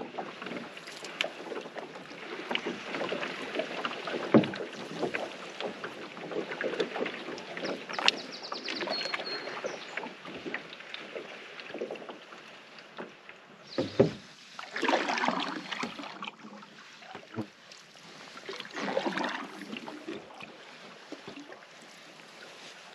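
Canoe paddling: paddle strokes swishing through the water with small drips and knocks, two sharper knocks of the paddle against the canoe about four and fourteen seconds in, and heavier strokes just after the second knock and again near nineteen seconds.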